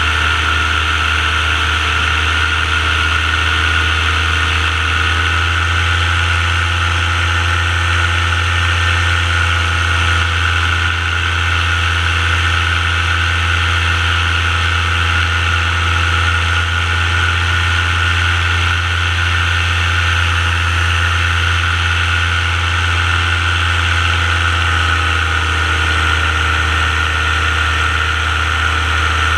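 Paramotor engine and propeller running steadily in flight: a constant low drone with a higher whine over it, its pitch shifting slightly now and then.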